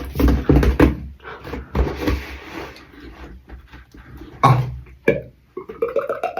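Beatboxer's vocal sound effects: a quick run of deep mouth thumps, then a breathy hiss, a couple of short voiced bursts and a rising pitched tone near the end, an imitation for listeners to guess.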